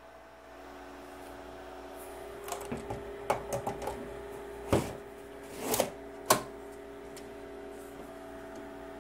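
Metal clicks and knocks as an 870 W hot-swap power supply is slid into its bay in a Dell PowerEdge R710 rack server chassis: a run of small clicks, a knock, a short slide, then a sharp latch click as it seats. A faint steady hum sits underneath.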